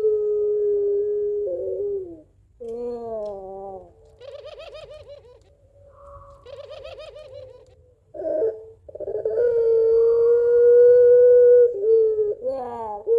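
Puter pelung, a domestic ringneck (Barbary) dove bred for a long voice, calling: a long held coo that ends about a second and a half in, a falling coo, then two quick trilling 'laughing' calls. Another long, steady coo follows about nine seconds in, ending with a short falling note.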